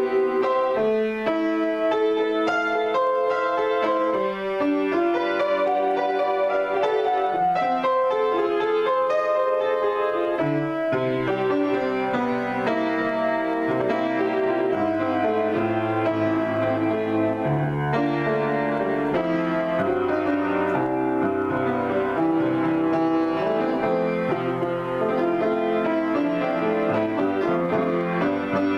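Solo piano improvisation: a continuous stream of notes and chords played by hand. About eleven seconds in, low bass notes join beneath the melody.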